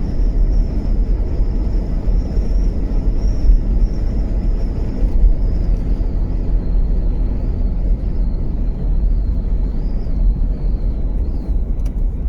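Land Rover driving along, heard from inside the cab: a steady low engine and road rumble, with a faint high whine wavering over it.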